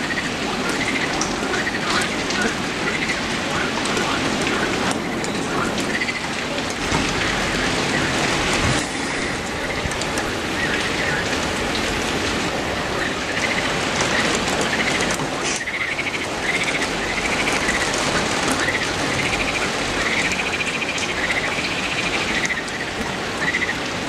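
Steady rain falling through leafy trees onto wet ground, an even hiss. Short high chirps repeat faintly over it, more of them in the second half.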